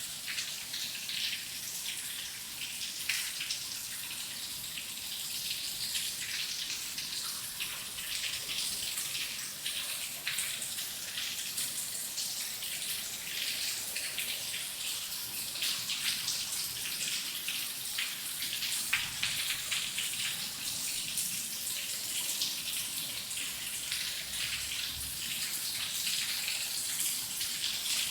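Steady rain, with a dense scatter of individual drop hits over an even hiss.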